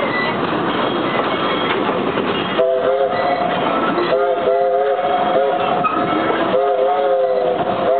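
A locomotive's chime whistle sounds a three-note chord in several blasts, starting a few seconds in, over the steady running noise of the train.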